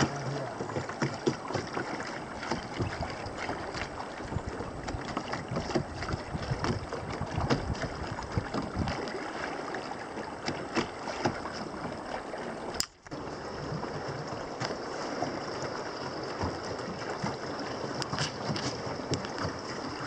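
River water rushing and splashing against an inflatable raft under way, with wind buffeting the microphone. The sound breaks off for an instant about two-thirds of the way through.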